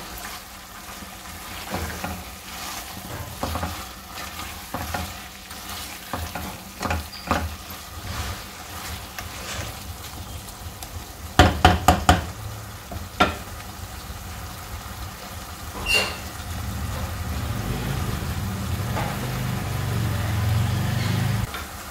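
A silicone spatula stirs potato-and-capsicum curry in an aluminium pot, scraping and knocking against the metal, with a cluster of louder knocks about halfway through, while the masala fries as its water cooks off. Over the last five seconds the frying sound becomes steadier and louder.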